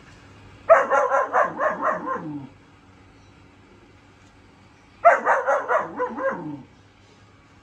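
Four-month-old German shepherd puppy barking in two quick runs of about six sharp barks each, a few seconds apart.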